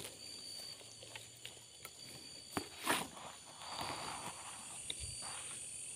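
Night insects trilling steadily, with a repeated short high chirp. Close by are a few sharp clicks and a brief rustle, about two and a half to four seconds in, from brush and twigs being handled near the microphone.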